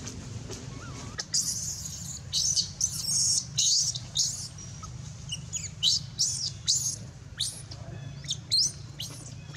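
Infant long-tailed macaque screaming in a rapid run of short, high-pitched squeals that sweep downward, starting about a second in. These are distress cries of a baby being refused the nipple by its mother.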